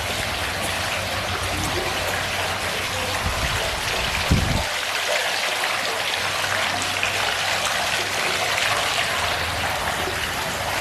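Steady, even hiss, with a brief low thump about four seconds in.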